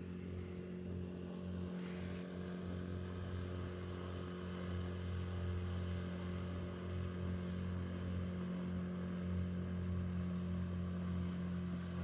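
Motorboat engine running with a steady low drone that grows slowly louder as the boat approaches.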